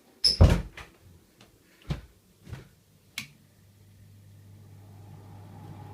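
A few sharp clicks and knocks as the Sharp window air conditioner's controls are worked, the loudest about a third of a second in. About three seconds in, its fan motor starts with a low hum and the sound of the air builds gradually toward the end.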